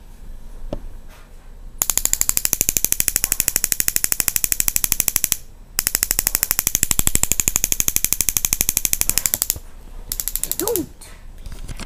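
Battery-powered electronic barbecue igniter sparking: a rapid, even train of sharp snapping clicks. It comes in two runs of about three and a half seconds each, split by a brief pause, and then a short third burst near the end.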